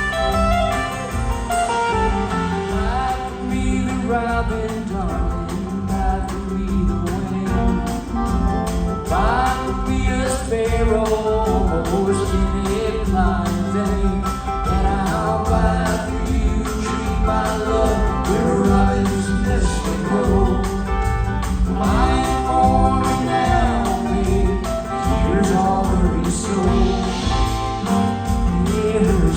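Live band music with singing: a sung melody over the full band, playing continuously at a steady loudness.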